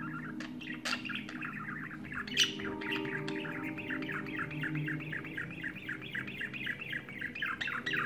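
Budgerigar warbling continuously in a fast, chattering song, the male's courtship singing to females, with a few sharp squawks, the loudest about two and a half seconds in. The song breaks off right at the end.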